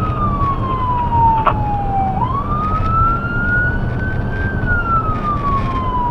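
Electronic emergency-vehicle siren on wail: one slow pitch cycle that falls, rises again from about two seconds in, then falls once more. Steady road and engine rumble runs underneath.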